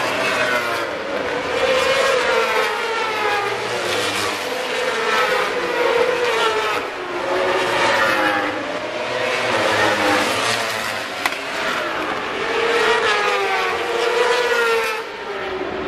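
Several World Superbike racing motorcycles at full throttle, their engine notes climbing in pitch and dropping back again and again as they shift up through the gears, overlapping one another.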